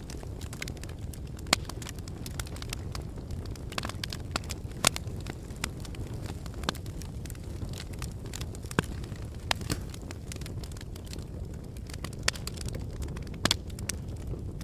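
Wood fire crackling: irregular sharp pops and snaps, a few louder than the rest, over a steady low rumble.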